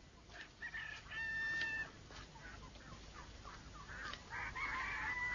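Chickens clucking in a farmyard. There is a longer held call about a second in, a run of short clucks after it, and a thicker burst of clucking and cackling near the end.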